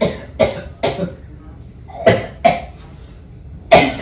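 A man's put-on, fake coughing: harsh coughs in short bouts, three in the first second, two just after two seconds in, and one more near the end.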